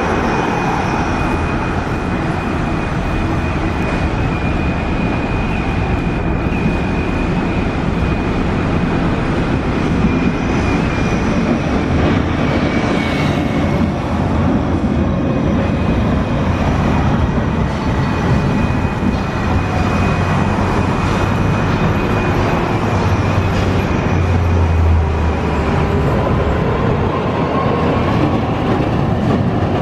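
Street traffic with trams passing close: a low-floor articulated tram goes by midway and an older single-car 8200-series tram near the end, over the running of cars and buses. A steady high whine runs through the first half.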